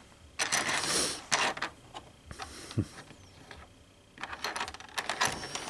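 Small plastic model-kit parts and their plastic bag being handled, rustling and clicking in a few short bursts.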